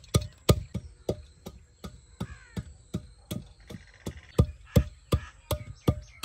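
Long wooden pestle pounding shelled pistachios in a terracotta clay bowl: steady, even strokes, about three a second, each a dull knock as the nuts are crushed.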